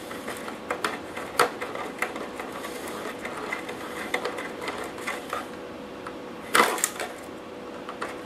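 Small screwdriver driving screws into the plastic cab of a 1/14 scale model truck to fix a light-bulb bracket: a run of faint clicks and ticks, with one louder knock about six and a half seconds in.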